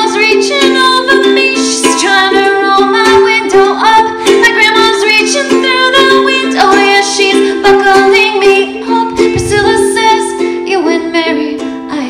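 A woman singing while strumming a ukulele.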